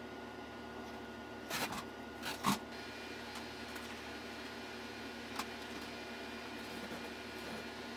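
Steady room hum broken by a few short scuffs and knocks from old carpet being worked up off the floor across the room: a pair about a second and a half to two and a half seconds in, the second the loudest, and a single click a little after five seconds.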